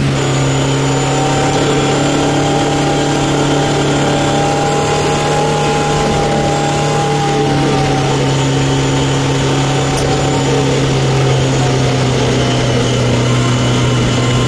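Racing Opel's engine heard from inside the cockpit, running hard at a nearly steady pitch with little change in revs, with a faint whine above the engine note.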